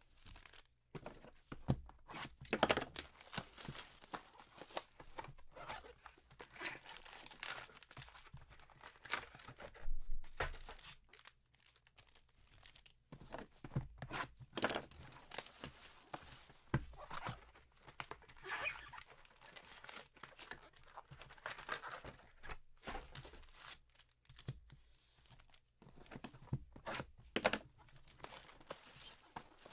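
Foil trading-card pack wrappers (2015 Panini Prizm football) tearing and crinkling as hands open packs and handle the cards, an irregular run of crackling noises.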